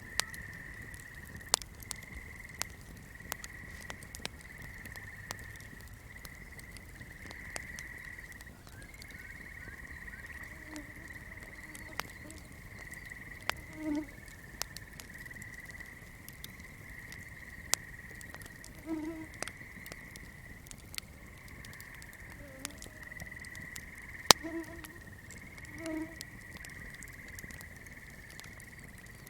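Swamp ambience: a steady high-pitched trilling chorus of frogs and insects, with a few low frog croaks, over the sharp irregular pops and crackles of a burning flame.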